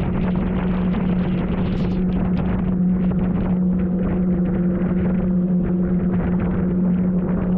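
Outboard motor of a combat rubber raiding craft running steadily at speed, a constant low engine tone, heard from on board. Over it, water spray hisses and slaps against the inflatable hull as the boat crosses the chop.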